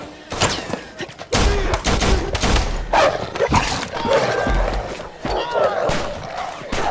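Film fight sound: repeated gunshots and heavy thuds, with a dog snarling as it attacks and brings down a man, who cries out.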